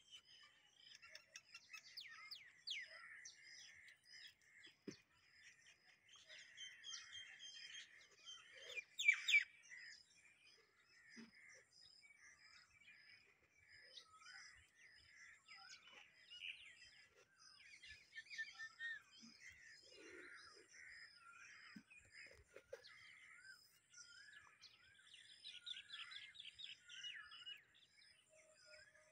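Faint chorus of small birds chirping and singing, with a faint high note repeating steadily. One louder call comes about nine seconds in, and a quick trill near the end.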